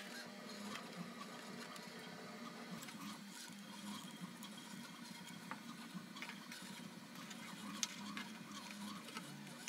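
Faint handling noises of foam board being pressed and glued with a hot glue gun: scattered small clicks and taps, with one sharper click about eight seconds in.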